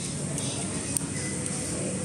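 Steady eatery room noise with a single light click of a metal spoon against crockery about a second in.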